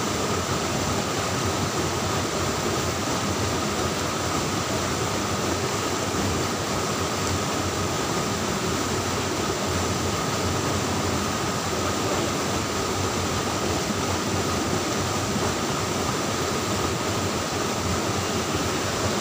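Steady rush of stream water flowing over rocks.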